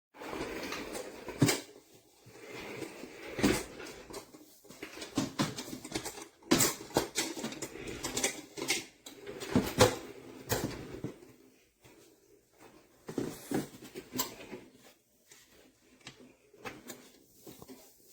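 Irregular knocks, clicks and rustling of a rolling craft cart's wood and plastic parts being handled and taken apart by hand, busiest in the first ten seconds and thinning out after.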